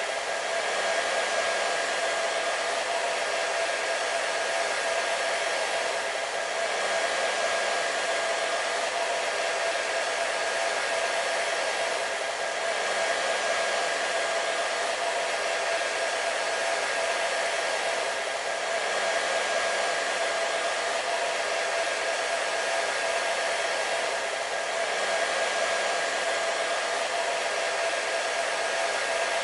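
Hair dryer running steadily: a continuous rush of air with a steady motor whine over it, swelling slightly every six seconds or so.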